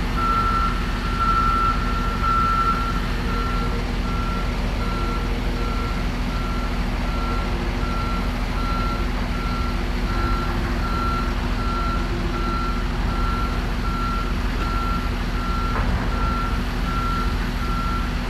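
Reversing alarm of a wheel loader backing up, beeping steadily at about two beeps a second over the low running of the machine's diesel engine.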